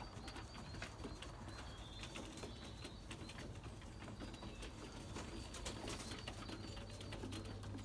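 Racing pigeons cooing faintly, with scattered light clicks in the background.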